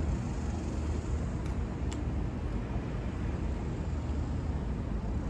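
Steady low rumble of street traffic, with a couple of faint clicks about a second and a half and two seconds in.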